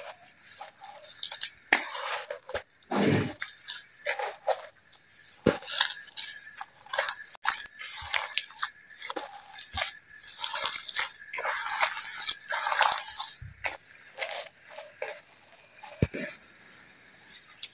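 Bare hands mixing and squeezing a mashed-potato kebab mixture with flour and cheese worked into it: an irregular run of short, soft, sticky sounds.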